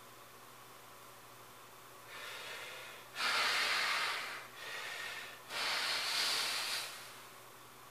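A bodybuilder breathing hard while straining in a most-muscular pose: two rounds of a quieter breath in followed by a loud, forceful breath out, each out-breath lasting about a second and a half.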